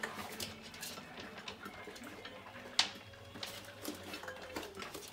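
A litter of Airedale terrier puppies crunching dry kibble: a scatter of small crunches and clicks, with one sharper click about three seconds in.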